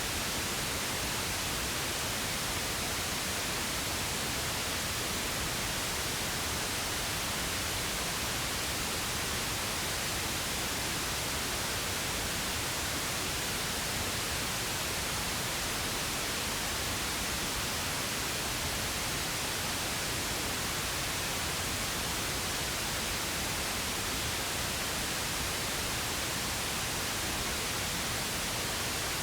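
Steady pink noise: an even, unchanging hiss spread across the whole range, with no changes or events.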